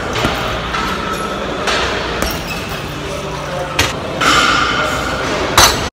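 Cable pulley machine worked through tricep pushdown reps, with a swell of noise about every two and a half seconds, over steady gym background noise. A couple of sharp metallic clinks come late on.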